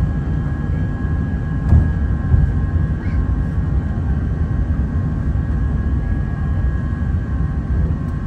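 Airbus A380's Rolls-Royce Trent 900 jet engines running, a steady low rumble with a thin steady whine above it. Two brief thumps come about two seconds in.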